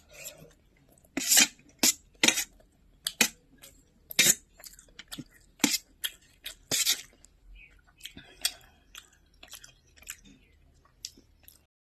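Close-miked eating sounds: chewing with sharp, irregular crunches and mouth smacks about once a second, softer in the last few seconds.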